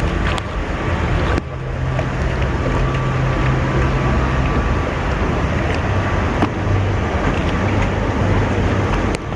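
Rushing water and wind noise on the microphone on a log-flume water ride, with a steady low mechanical hum beneath; the noise drops abruptly for a moment about a second and a half in.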